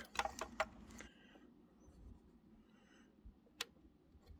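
Light clicks and knocks of a plastic dust bag being pushed and twisted onto a plunge saw's dust port: several in the first second, then a single sharp click about three and a half seconds in.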